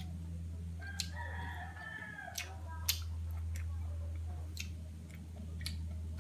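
A rooster crowing once in the background, starting about a second in and lasting about a second and a half, its pitch falling at the end. Crisp crunches of a cucumber stick being bitten and chewed come every second or so, over a steady low hum.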